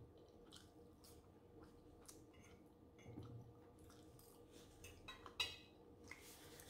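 Faint close-miked chewing and mouth sounds of someone eating a forkful of soft macaroni and cheese, with small scattered clicks. About five and a half seconds in, a sharper clink: the metal fork is set down on the plate.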